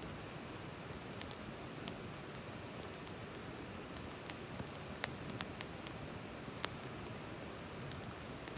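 Campfire crackling: a steady hiss with sharp, irregular pops and snaps, a few of them louder about five and six and a half seconds in.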